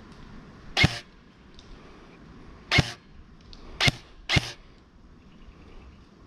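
Four single shots from an electric airsoft DMR, a Delta Armory AR-15 Alpha by EPES Custom Works, each short and sharp. The first comes about a second in, the second about two seconds later, and the last two close together.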